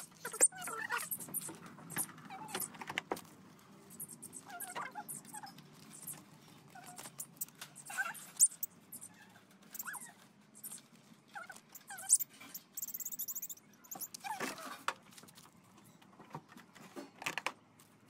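Budgerigars and cockatiels in a wire cage giving short, scattered squawks and chirps as they are caught by hand, with sharp clicks and rattles from the wire cage.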